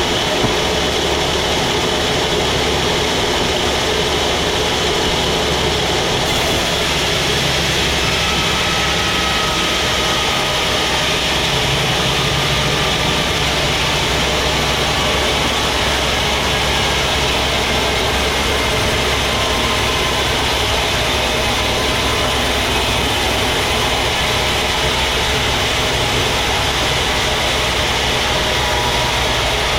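Sawmill machinery running steadily: a constant engine hum under an even, unchanging mechanical noise.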